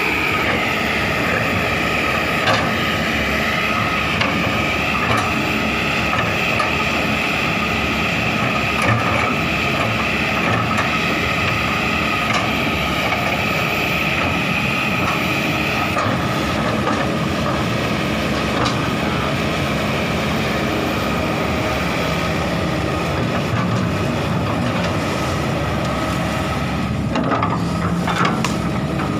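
Kobelco SK200 hydraulic excavator's diesel engine running steadily, with a high whine that weakens about halfway through and a few knocks near the end.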